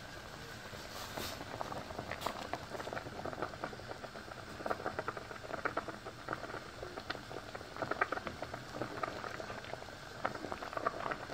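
A pot of catfish pepper soup boiling, with a steady run of small, irregular bubbling pops.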